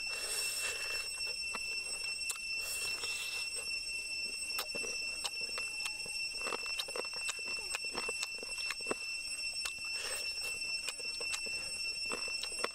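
Close-up eating sounds: chewing and tearing meat off grilled pork rib bones by hand, with many small wet clicks and a few brief noisy tears. A steady high-pitched insect drone runs underneath throughout.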